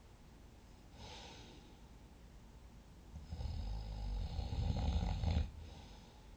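A sleeping person snoring: a fainter breath about a second in, then one long snore of about two seconds, loudest near its end.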